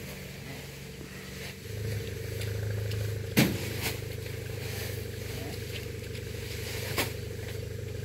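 A motor engine running steadily with a low hum, swelling for a second or two about two seconds in. Two sharp clicks cut through it, at about three and a half and seven seconds.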